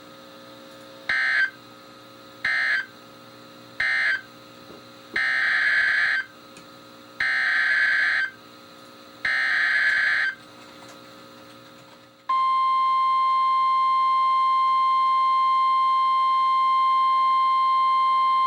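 NOAA Weather Radio alert signalling from a weather radio's speaker: three short end-of-message data bursts, then three longer SAME header data bursts about two seconds apart. About twelve seconds in comes the loud, steady 1050 Hz warning alarm tone that opens a severe thunderstorm warning.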